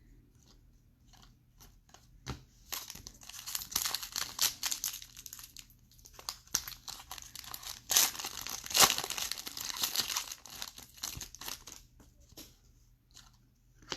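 Plastic wrapper of a baseball card pack being torn open and crinkled, loudest just past the middle and trailing off near the end.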